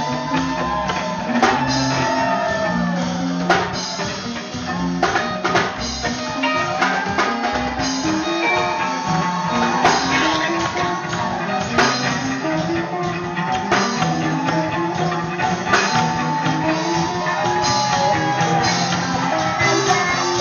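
Live gospel band playing: electric guitars over a drum kit, with a bass line stepping between notes and sharp drum hits.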